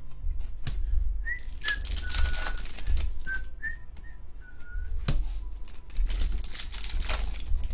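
Trading cards being flicked through and slid over one another by hand, a run of short scraping swishes over a low steady hum. In the first half come about eight short, high whistle-like notes.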